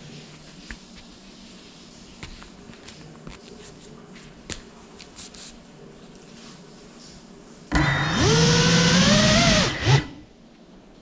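A Cinelog 35 FPV cinewhoop's motors spin up for about two seconds near the end, a loud whine that rises in pitch over a rush of propeller wash. It cuts off with a sharp knock. Before it there are only a few faint taps.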